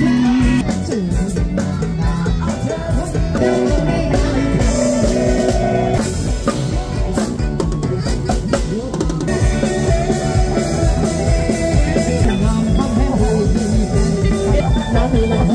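Music with a drum kit and other instruments playing.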